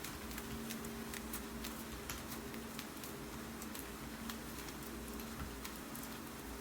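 Steady rain with scattered light clicks of typing on a computer keyboard, over a faint low hum that comes and goes.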